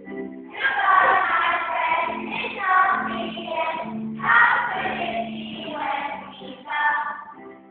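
A group of children singing together as a choir, in sung phrases that pause briefly about four seconds in and again near the end.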